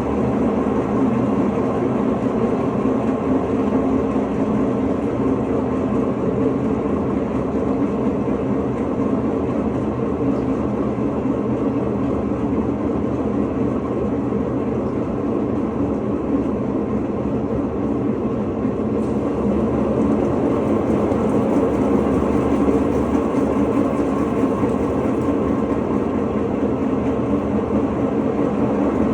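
Electrolux LTE09 top-loading washing machine in its intermediate spin, running with a steady rumble from the drum bearing: the sign of a worn bearing.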